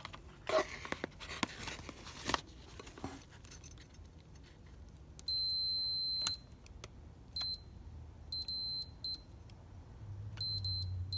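Multimeter continuity beeper sounding as its probes rest across a tractor voltage regulator's cleaned contact points: one steady high beep of about a second, then several short beeps as the points make and break contact. Before the beeps come a few seconds of clicks and rustling from handling the probes and wires.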